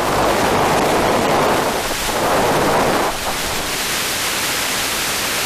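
Steady rushing hiss with no engine or motor tone in it, dropping a little in level about three seconds in.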